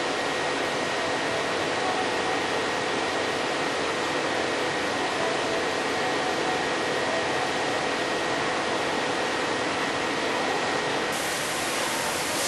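CNC milling machine running steadily, its spindle turning a 4-flute solid carbide thread mill at 1,500 RPM as it cuts an external pipe thread dry on Hastelloy. The sound is an even whir with faint steady tones, and a higher hiss joins about a second before the end.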